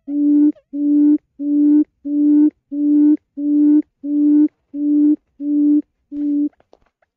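Quail calling: a series of eleven low, even hoots, about one and a half a second, each held at one pitch, stopping about six and a half seconds in.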